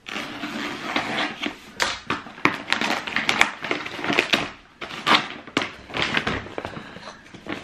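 Brown paper parcel being slit with a utility knife and torn open, the paper crinkling and rustling in irregular bursts.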